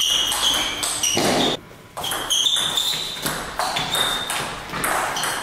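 Table tennis ball being hit back and forth in a rally: repeated sharp, ringing pings of the ball off the bats and the table, with a short pause about a second and a half in.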